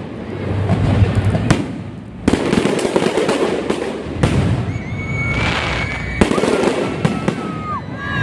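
Aerial fireworks display: shells bursting in sharp bangs every second or two, with crackling in between and a high whistling tone in the second half.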